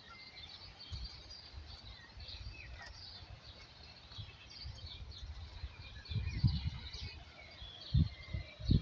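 Small birds chirping and singing in many short calls over a steady outdoor background. A low rumbling on the microphone grows louder in the last few seconds.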